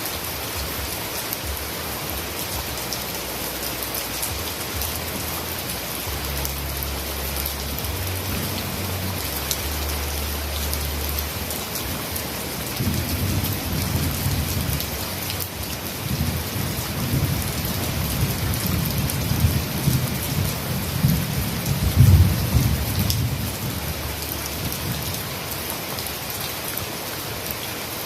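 Heavy rain falling steadily, with a low rolling rumble of thunder that builds about halfway through, is loudest around three quarters of the way in, then fades back to rain alone.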